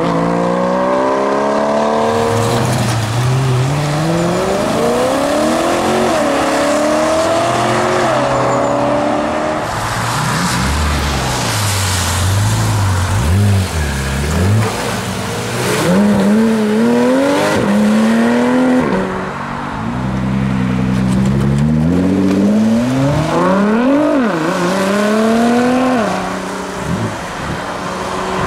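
Porsche Cayman GT4 and 911 GT3 RS flat-six engines accelerating hard away one after the other. Each revs up through several gears, the pitch climbing and then dropping at every shift.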